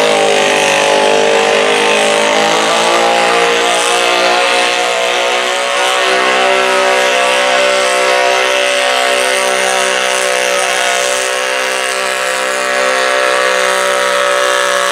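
Stock altered garden tractor's engine running hard under full load as it pulls a weight-transfer sled. The steady engine note dips slightly at first, then holds.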